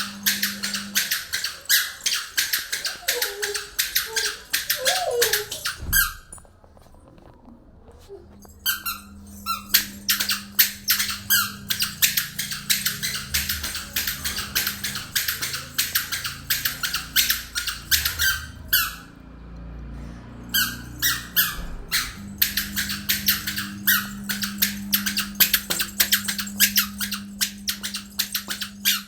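A child's squeaky shoes chirping with each step: a quick run of high squeaks, several a second, that stops twice for a couple of seconds while he pauses.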